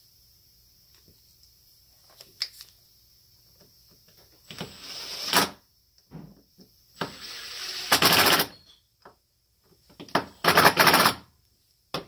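Three loud hissing blasts, about a second and a half each, from a pressurized nozzle blown through a disassembled Mikuni carburetor body, the first rising as it goes and the later two with a rapid flutter. Faint clicks of small parts being handled come before them.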